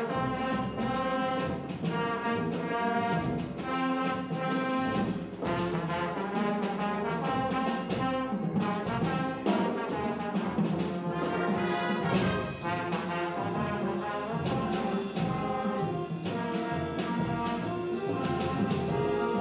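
Marching band playing: a brass section of trumpets, trombones and a sousaphone carrying the tune and chords over steady bass drum and percussion strokes.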